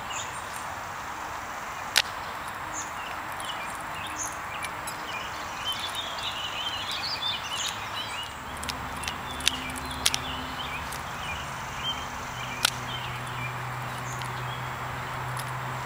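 A colour guard practice rifle slapping into the hands as it is spun and caught: a few sharp claps spaced seconds apart. Birds chirp over steady outdoor background noise, busiest about halfway through, and a low steady hum comes in a little past the middle.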